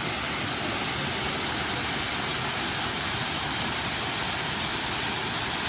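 Prek Svay Waterfall's water falling and splashing, a steady, unbroken rush of water noise, with a thin high steady whine over it.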